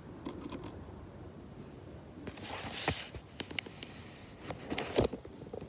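Quiet handling sounds as small storytelling figures are moved: a brief rustle a little over two seconds in and a few light knocks.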